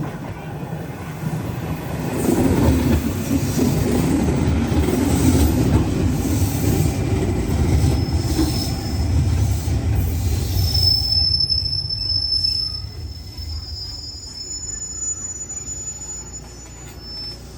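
A train running along the track past the platform with a heavy rail rumble that builds a couple of seconds in and fades after about twelve seconds. A thin, high metallic squeal from the wheels on the rails sets in as the rumble fades and lingers to near the end.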